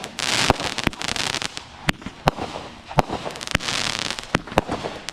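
Fireworks going off: a string of irregular sharp bangs and pops, with two spells of hissing crackle, one just after the start and one a little before the end.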